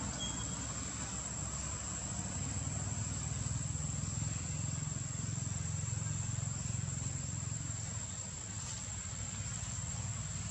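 Steady outdoor ambience: a constant high insect drone over a low, even rumble.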